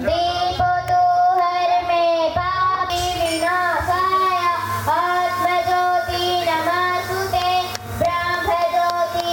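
Young girls' voices singing a song together in long, held notes.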